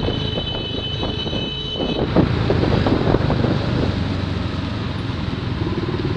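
Motorbike engine running with road and wind noise, riding in traffic with a minibus close alongside. A few thin high tones sound over it for the first two seconds.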